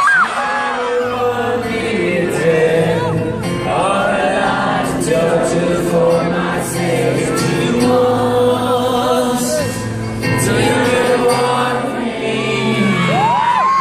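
Live acoustic song: guitar accompanies a large concert crowd singing along, many voices together holding long notes, with whoops and whistles from the audience near the start and end.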